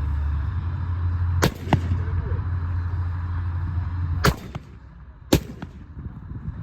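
Three gunshots: the first about a second and a half in, the next nearly three seconds later, and the last about a second after that. A steady low rumble underneath cuts off at the second shot.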